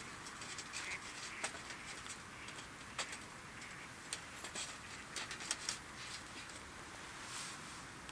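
Wood campfire crackling: irregular sharp pops and snaps over a steady soft hiss.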